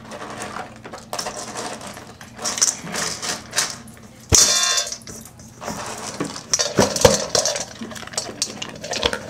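Dry dog food kibble clattering and rattling in a bowl as it is grabbed and stirred by hand, in many small irregular clicks. A sudden louder sound, lasting about half a second, a little over four seconds in.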